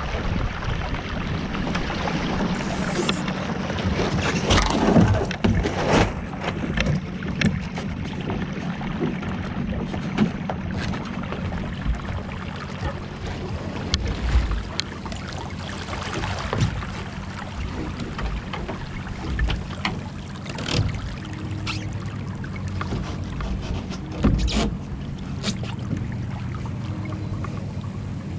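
Finn dinghy sailing in light wind: water washing along the hull with wind on the microphone, and scattered knocks and clicks from the boat's gear, several close together about five seconds in.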